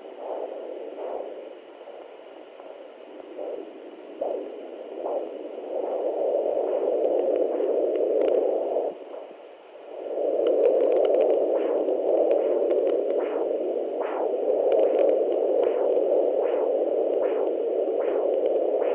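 Handheld Doppler monitor's speaker giving a windy, whooshing static noise. From about ten seconds in, a regular swishing beat a little faster than once a second rides on it, after a brief dip just before.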